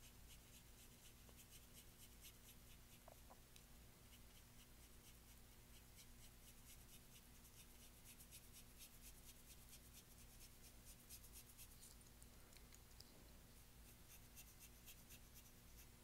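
Faint, scratchy brushing of paintbrush bristles on canvas: many short strokes in quick succession as acrylic paint is laid on, over a faint steady low hum.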